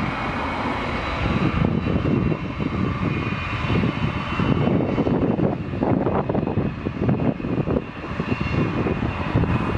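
Boeing 787 Dreamliner's twin jet engines at takeoff thrust during the takeoff roll, heard from behind: a deep, crackling rumble with a steady high whine above it.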